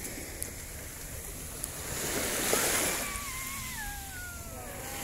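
Small waves washing up onto a sandy beach, swelling as one wash comes in about two and a half seconds in. Over the last two seconds a thin tone slides slowly downward.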